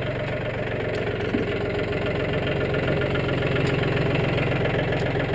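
John Deere 870 compact tractor's three-cylinder diesel engine running steadily at idle.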